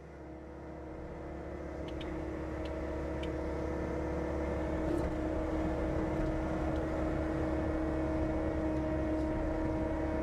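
John Deere 325G compact track loader's diesel engine running at a steady speed, with a constant drone that fades up over the first few seconds.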